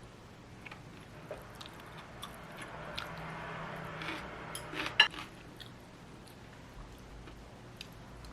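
Kitchen handling noises: scattered light clicks and clinks of dishes and utensils, a soft rushing noise for a second or two around the middle, and one sharp clink about five seconds in.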